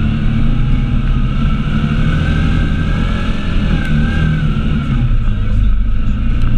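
Off-road vehicle engine running steadily on a trail ride, with a fainter whine that rises and falls a little in pitch through the middle.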